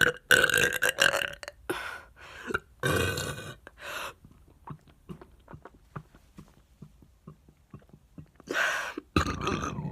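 A woman burping several times: one long burp at the start, two shorter ones a few seconds in, then a quiet pause and another burp near the end.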